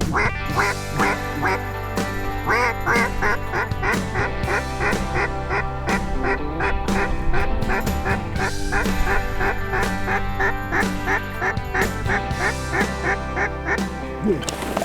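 Mallard-style quacking, a rapid run of short repeated quacks, over background music with a steady low drone.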